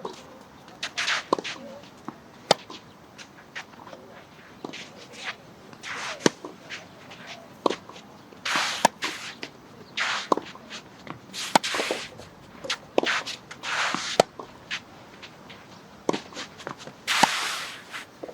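Hard tennis balls being struck by rackets in a singles rally: sharp cracks every second or two, with the players' shoes scuffing and sliding on the court between shots.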